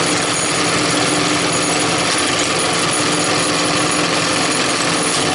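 Singer 71-34 buttonhole sewing machine running at speed, a loud, dense, steady mechanical clatter.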